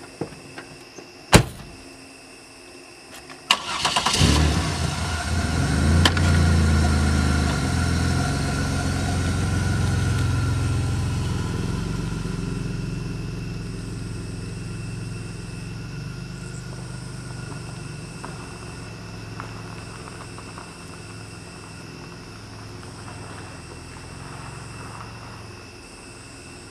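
A car door shuts with a sharp thump about a second in. A couple of seconds later the sedan's engine starts and runs, then slowly fades as the car pulls away.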